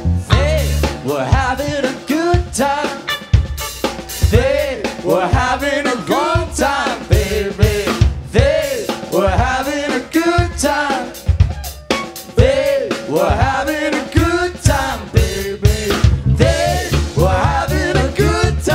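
Live rock band playing: drum kit with snare and kick hits, electric guitars, bass and keyboards, with a lead line of notes swooping up and down over the beat.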